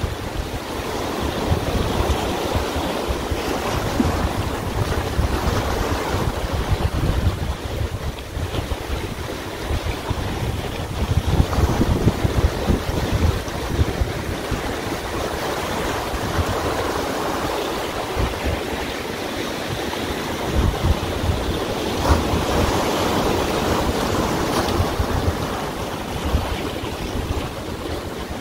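Small waves washing and breaking against shoreline rocks, swelling and easing, with wind buffeting the microphone as a low rumble.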